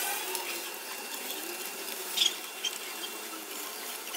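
Small hand-tool work on an aluminium motorcycle engine crankcase, with one sharp metallic click about two seconds in.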